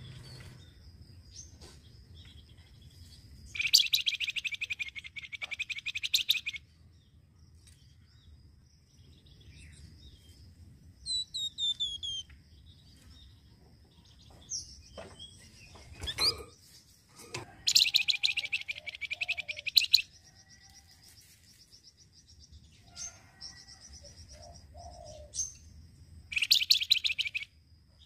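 Caged flamboyan, a small brown Indonesian songbird, singing in three bursts of fast buzzy chattering, each one to three seconds long, with a few short whistled notes and clicks in between.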